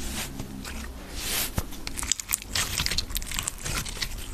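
Translucent slime being squeezed and worked in the hands close to the microphone, giving a dense run of small wet clicks, pops and crackles.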